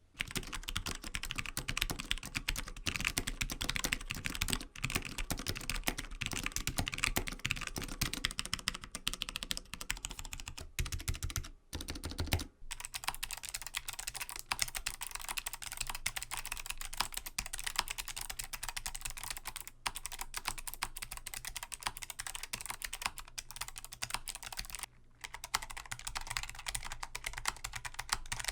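Rapid typing on a mechanical keyboard: a dense run of key clacks. About twelve seconds in there is a short break, and the clacks then take on a different character, as in a test of another switch.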